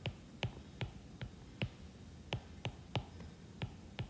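Plastic stylus tip tapping and clicking on a drawing tablet's screen as strokes are drawn: about a dozen short, sharp ticks at uneven spacing, two or three a second.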